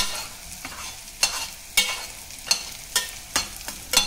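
A slotted steel spatula stirring prawns in gravy in a stainless steel pot, knocking and scraping against the pot about every half second, over a low sizzle of the cooking prawns.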